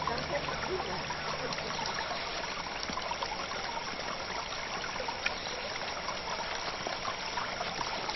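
Water trickling steadily from a small garden pond fountain.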